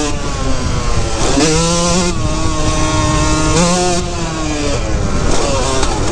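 2003 Yamaha YZ125's 125cc two-stroke single-cylinder engine under riding load. It revs up sharply twice, about a second in and again past the middle, holding each time before the pitch drops back as the throttle eases.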